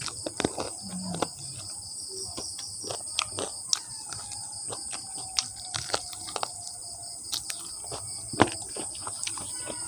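Close-up chewing of fried chicken feet: irregular crunching and wet smacking clicks as skin and small bones are bitten and chewed. A steady high-pitched insect drone runs behind.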